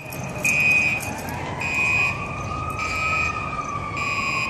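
Fire apparatus siren in a slow wail, its pitch rising and then falling, with a high alarm tone pulsing on and off about once a second.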